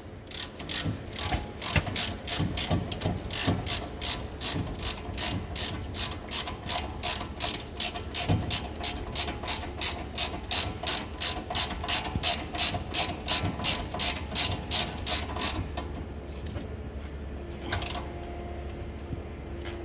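Hand ratchet wrench clicking rapidly and evenly, about three to four clicks a second, as the caliper bracket bolts are run in; the clicking stops a few seconds before the end.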